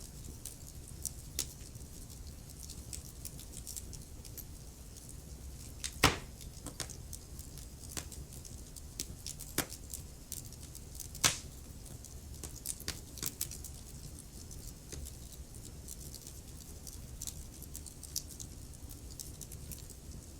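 Wood fire in a fireplace crackling: irregular sharp snaps and pops over a low, steady rumble of flames, with two louder pops about six and eleven seconds in.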